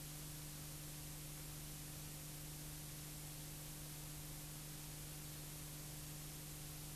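Steady hiss with a constant low hum: the background noise of a soundless film transfer. No sound of the sidecar's engine.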